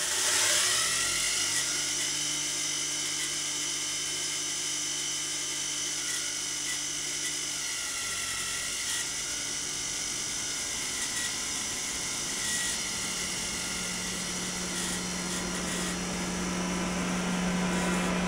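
Brushless motor spinning a 3D-printed Magnus propeller through a bevel-gear drive: a steady high whine with gear and air whirring, getting up to speed at the start. A lower hum grows louder in the second half.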